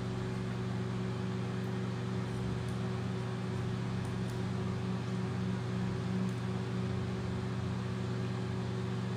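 Steady low hum of a running household appliance motor.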